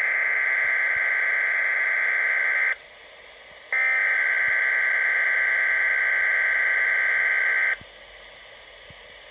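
Weather radio SAME alert header: screechy, buzzing digital data bursts received over the air. The first burst cuts off a little under three seconds in. A second, longer burst starts about a second later and runs about four seconds, with radio hiss in the gaps.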